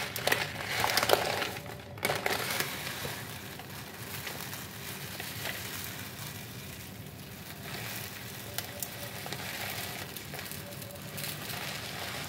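Dry basmati rice grains poured from a plastic pouch into a plastic bowl: a steady hiss and patter of falling grains. Louder rustling of the pouch in the first two seconds.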